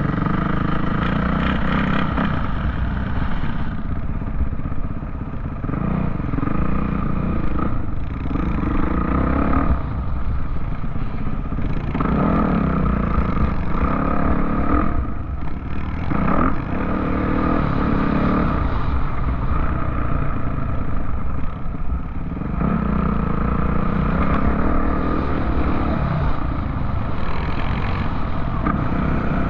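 Off-road vehicle's engine running, its revs rising and falling every few seconds.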